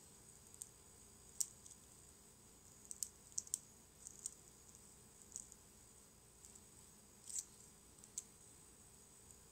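Hobby knife blade cutting through the thin supports of resin 3D-printed model parts: about a dozen small, sharp, irregular clicks and snaps as the supports give way, over a faint steady high hiss.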